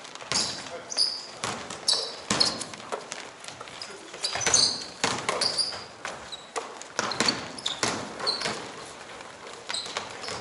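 Pickup basketball game on an indoor court: basketballs bouncing in an irregular stream of thuds, mixed with short high sneaker squeaks on the floor.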